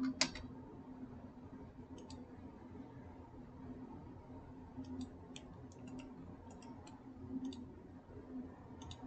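Faint computer mouse clicks, single and double, scattered through, with a cluster about five to seven seconds in, over a low steady hum.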